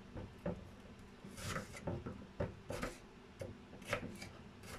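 Kitchen knife dicing peeled apple on a wooden cutting board: a series of short, irregular knocks as the blade meets the board, with a brief scrape about a second and a half in.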